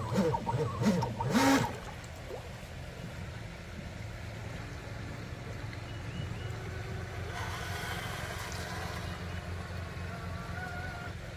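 A steady low hum, with a few sharp clicks and knocks in the first two seconds.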